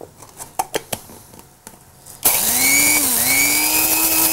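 Electric blade coffee grinder grinding whole coriander and anise seed: a few clicks as the lid goes on, then about two seconds in the motor starts suddenly and runs with a loud, steady whine. The whine's pitch dips briefly about a second after it starts.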